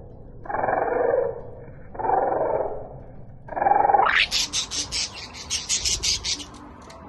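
Budgerigar chatter slowed and pitched down by slow-motion playback, heard as four deep, muffled bursts. About four seconds in the pitch sweeps sharply up as playback returns to normal speed, giving way to quick, high budgie chirps at about four a second.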